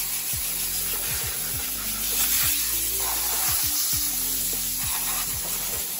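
Water spraying with a steady hiss, under background music with a deep, repeating beat.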